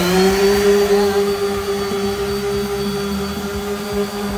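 Corded random orbital sander running at full speed against the top of a wooden box, a steady motor hum that has just come up to speed.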